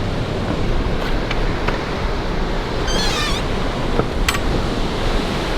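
Pacific surf breaking on a sandy beach: a steady rushing. About three seconds in comes a brief high squeal, and a sharp click follows a second later.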